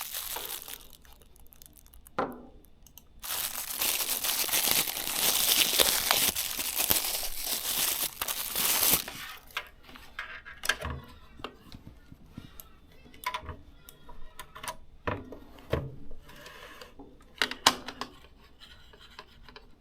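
Plastic wrapping crinkling and tearing as the mouse is unwrapped, densest for about six seconds starting around three seconds in. Then come scattered light clicks and knocks of handling.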